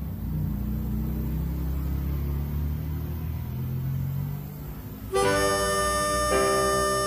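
A low, steady rumble, then about five seconds in a harmonica comes in playing held chords, changing chord about a second later: the start of a song's intro.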